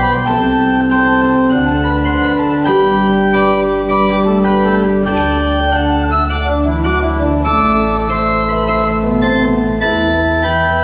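Small church pipe organ played in slow, sustained chords over long-held low bass notes, the harmony changing every two or three seconds.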